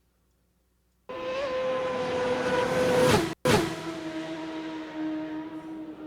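Suzuki GSX-R1000 superbike's inline-four engine at high revs, holding a steady pitch and then dropping sharply in pitch as it passes, about three seconds in; the first second is silent.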